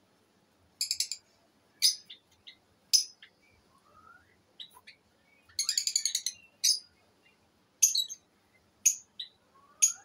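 A flock of lovebirds chirping: short, shrill calls about once a second, with a rapid run of chirps near the middle and a couple of softer rising whistles.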